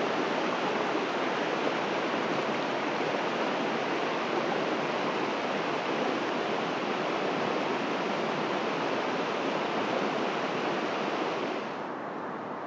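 A fast river running high, rushing steadily; a little quieter and duller near the end.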